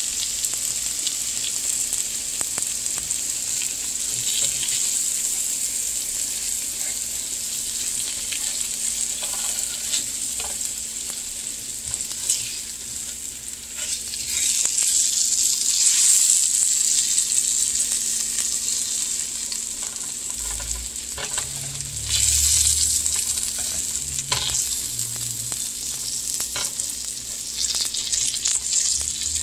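Salmon fillets frying in butter in a nonstick pan: a steady sizzle that swells louder a couple of times, with scrapes and taps of a spatula as the pieces are turned.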